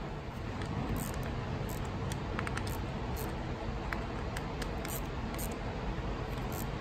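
Light, scattered metal clicks of a socket and bolts being handled on a VTEC solenoid assembly as the bolts are fitted and snugged, over a steady background hum.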